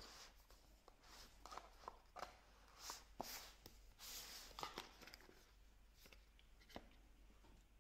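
Faint rustling and a scattering of light taps as oracle card decks are taken out of their cardboard box and set down on a table.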